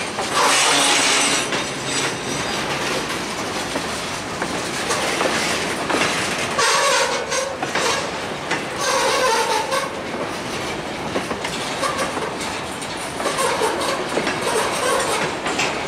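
Freight train's covered hopper cars rolling past close by: wheels clacking over rail joints, with squeals breaking in now and then.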